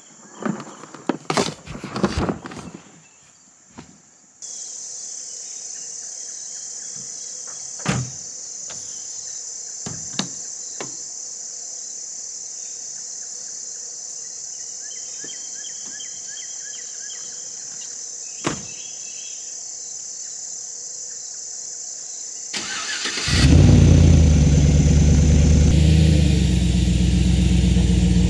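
A pickup truck's engine starting about 23 seconds in and then idling steadily, the loudest sound by far. Before it, crickets chirp steadily and there are a few single knocks.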